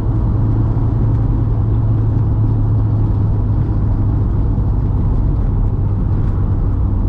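Mk2 VW's 1.8T four-cylinder engine pulling at a steady speed: a constant low engine drone with road and tyre rumble underneath.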